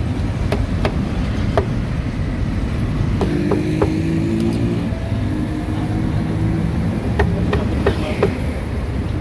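Steady low rumble of street traffic, with sharp irregular knocks, two quick clusters of them a few seconds apart.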